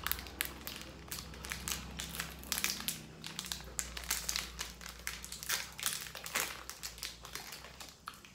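Plastic wrapper of a small pack of cream sandwich biscuits crinkling and crackling as it is torn open by hand: a dense run of sharp crackles that thins out near the end.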